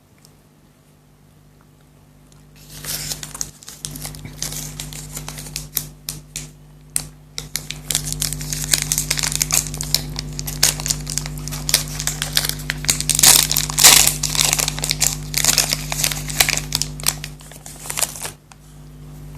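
Chocolate wrapper being crinkled and torn open close to the microphone: a dense run of crackling with sharp snaps, starting about three seconds in and stopping shortly before the end.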